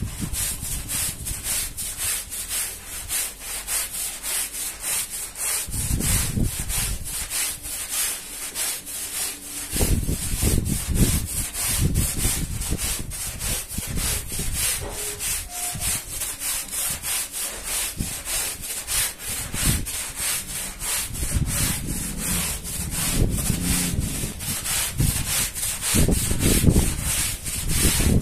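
Stiff-bristled push brush scrubbing a wet, soapy rug in quick, rhythmic back-and-forth strokes, the bristles rasping through the suds and pile.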